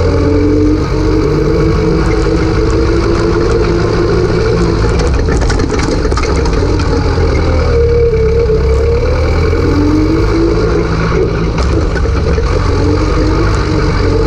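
Zetor 4011 tractor's four-cylinder diesel engine running hard, heard close up from on board. Its note dips and then climbs again as the tractor races along a rough dirt track, with a few rattling knocks about halfway through.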